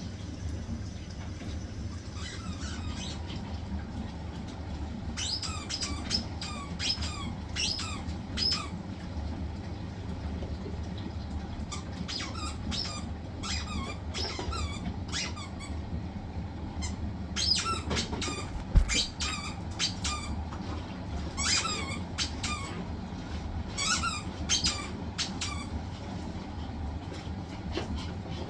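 Hisense washing machine running on its spin cycle with a steady low hum, with bursts of short, high squeaks over it and a single thump about two-thirds of the way through.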